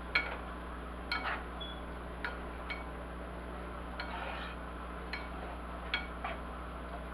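A slotted spatula stirring beans in a metal skillet, knocking and clinking against the pan about eight times with a brief scrape about four seconds in; each knock rings briefly.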